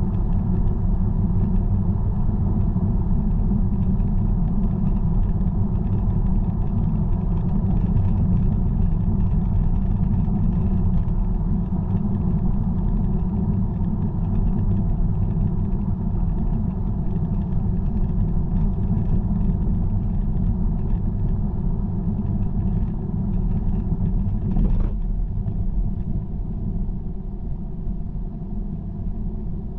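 Car driving at motorway speed: a steady low rumble of tyres and engine, with one brief knock near the end, after which the rumble eases slightly.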